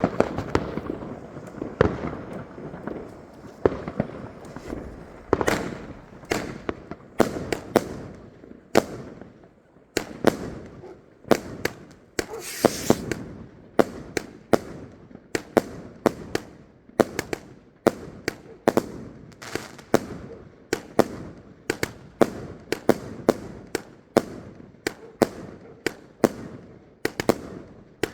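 Multi-shot consumer fireworks firing in a long series of sharp bangs, about one or two a second, with crackling in between. A brief hissing rush comes about halfway through.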